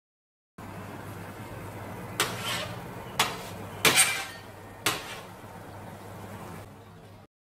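Four sharp clinks and knocks of a spatula against a black metal baking pan in an open oven as a pizza is turned, the loudest a quick double near the middle, over a steady low hum from the oven.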